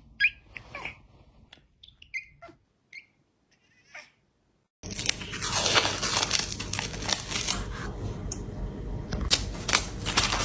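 A cat making a few short, faint calls, then from about halfway through a loud, continuous crinkling, tearing noise.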